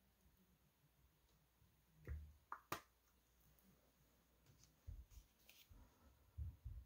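Near silence with faint handling noise on a hobby painting desk: a few light clicks about two to three seconds in, then soft low bumps near the end as a hand reaches in toward the miniature.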